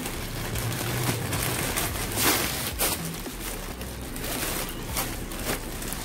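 Clothing and plastic packaging rustling as they are handled, with a few short, louder crinkles, the loudest about two seconds in.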